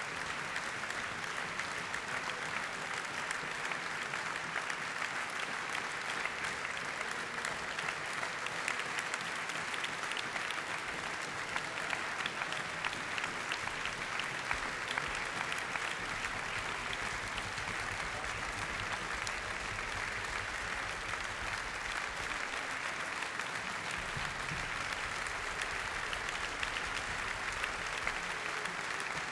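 Concert audience applauding: dense, continuous clapping at an even level.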